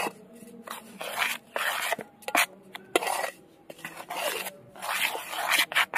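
Metal spoon stirring dry rice flour and spices in a metal bowl: repeated gritty scraping strokes against the bowl's side and bottom, with a few sharp clinks of the spoon on the metal.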